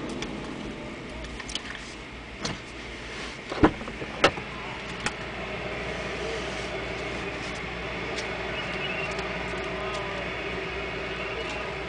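A few sharp clicks and knocks inside a parked car as its controls or door are handled, then a steady hum with faint tones that sets in about halfway through.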